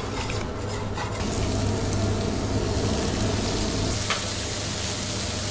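Food sizzling on a teppanyaki flat-top iron griddle: a steady hiss that swells about a second in, with a steady low hum underneath. A brief rasping sound comes in the first second.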